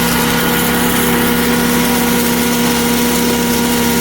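Electric grain mill running loud and steady while grinding dry grain: a constant motor hum under a dense rushing noise.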